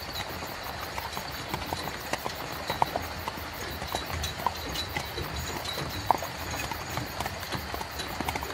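Horse-drawn carriage on the move: irregular clops of a horse's hooves over a steady low rumble of rolling wheels.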